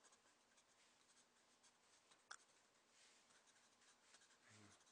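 Faint scratching of a pencil on sketchbook paper: quick short strokes scribbling tree foliage to wear the lead's edge broad for hatching. There is a sharper tick about halfway through.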